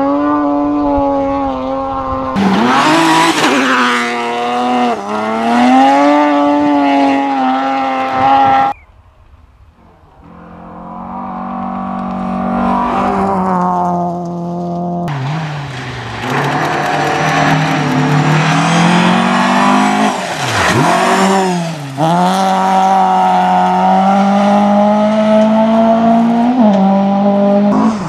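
Rally cars at full throttle on a gravel stage, one after another, engine notes climbing and dropping through gear changes and lifts as they pass close by, one with a sharp drop in pitch as it goes past about two-thirds of the way through.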